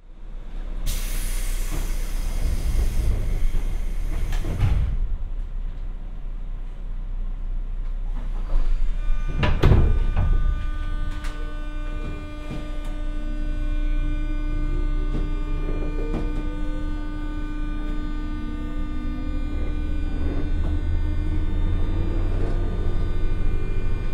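JR West 201 series electric train heard from inside the car as it pulls away from a stop. A hissing rush comes in the first few seconds and a brief loud burst about nine seconds in. From then on the thyristor chopper gives its steady whine of many fixed high tones, while the MT60 DC traction motors' hum rises in pitch as the train accelerates from a standstill.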